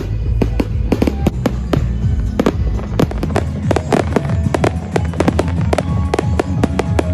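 Fireworks display with rapid, irregular bangs and crackles several times a second, under music with a steady bass.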